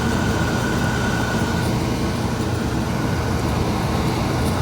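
Forced-air furnace running: a steady low hum, probably from its blower, with a thin high whine held through it.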